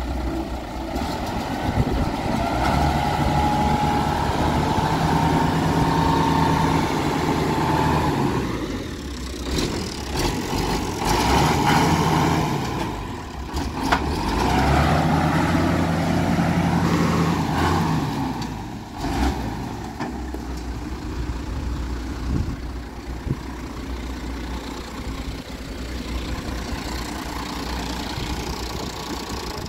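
John Deere 3130 tractor's diesel engine running, its speed raised and held three times, then settling to an even idle for the last ten seconds or so.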